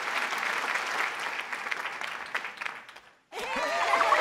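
Audience applause, a dense patter of clapping that fades out about three seconds in. After a brief silence, voices start up near the end.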